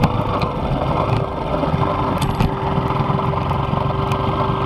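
Motorcycle engine running steadily while riding, heard from on board the bike, with a faint steady tone underneath.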